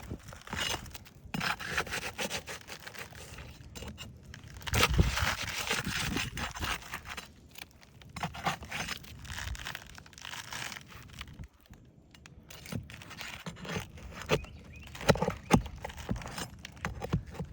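Roof shingles scraping, crackling and tearing as a pry tool is worked under them to get at the nails, with sharp knocks of the tool near the end. The tearing is the sign of shingles too brittle to repair.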